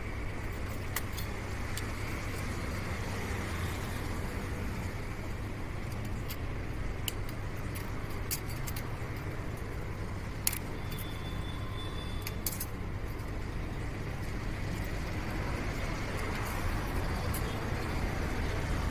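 Scattered light metallic clinks of tools and engine parts being handled during scooter engine assembly, over a steady low rumble.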